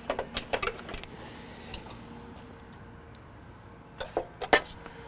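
Short sharp clicks and knocks in two clusters, one in the first second and another about four seconds in, from handling a DeWalt miter saw and the flexible moulding on its table while setting the angle.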